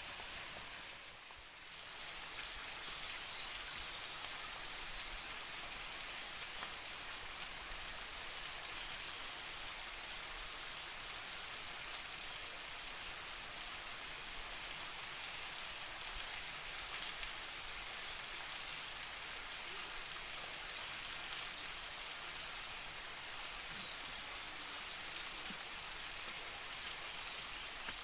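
Steady, high-pitched chorus of forest insects, with a brief dip about a second in.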